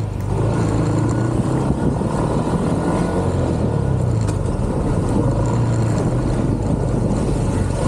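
Motorbike engine running steadily while riding, its low hum drifting slightly in pitch, over road and wind noise.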